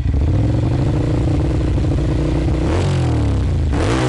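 2009 Ducati Monster 696's air-cooled L-twin engine running through an aftermarket Termignoni carbon slip-on exhaust, idling steadily and then blipped twice near the end, the revs rising and falling each time.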